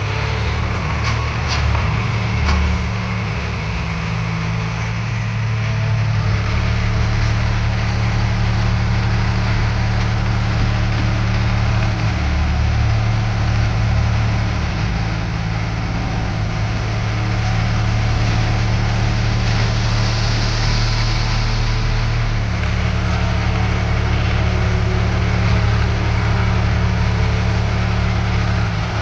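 Diesel engine of heavy earthmoving machinery running steadily at a constant speed, with a few sharp knocks a second or two in.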